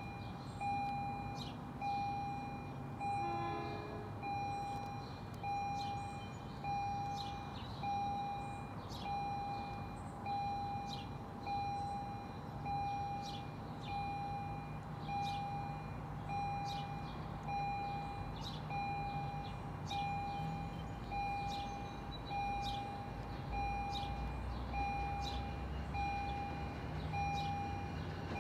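Railroad grade-crossing warning bell dinging steadily about once a second as a train approaches, with the low rumble of the oncoming train building in the second half.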